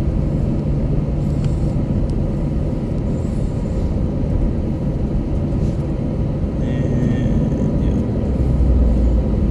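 Steady low rumble inside the cabin of an Airbus A321-200: jet engine and airframe noise heard through the fuselage as the aircraft moves. The deepest part of the rumble swells slightly near the end, and a faint, brief higher sound comes about seven seconds in.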